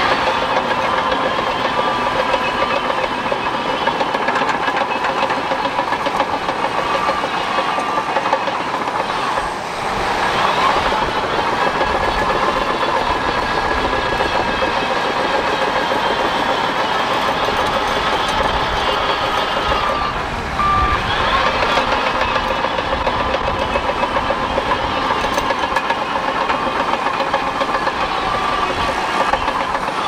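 Bulldozer running steadily, its diesel engine and tracks working, with the engine note shifting in pitch about ten seconds in and again about twenty seconds in. Short reversing-alarm beeps sound near the start and again around the twenty-second mark.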